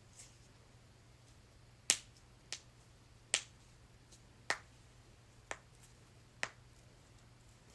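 Joints being cracked: six sharp pops spaced roughly a second apart, the first the loudest.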